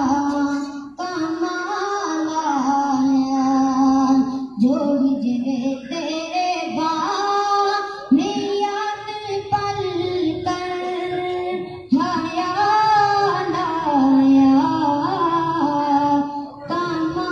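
A high voice singing a naat, an Urdu devotional hymn in praise of the Prophet, without instruments. It is sung in phrases of a few seconds, each ending in a long held note.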